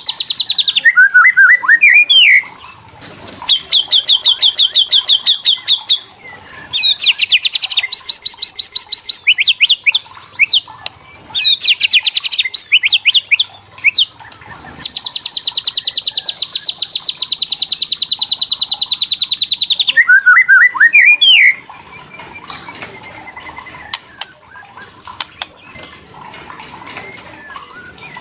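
White-rumped shama (murai batu) giving its agitated rattling call, the kretekan: runs of rapid, evenly repeated notes broken by short whistled phrases, with one long rattle lasting about five seconds. About three-quarters of the way through the calling stops and only faint background sound remains.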